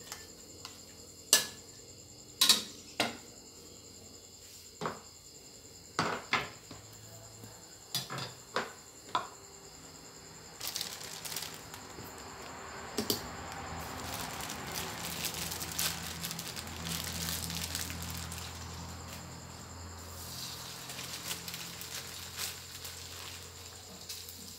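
Metal knocks and clinks of a bowl and steel spatula against a steel wok. From about ten seconds in, chopped garlic starts sizzling in the heating oil, building up and then easing off a little.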